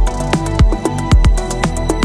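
Electronic music played on a Eurorack modular synthesizer: sustained synth chords under a deep kick drum that drops in pitch about once a second, with rapid steady ticking percussion on top.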